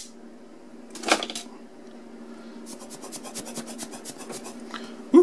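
Small objects handled on a desktop: one sharp knock about a second in, like something hard set down, then a quick run of faint crackling ticks for about two seconds. A steady low hum runs underneath.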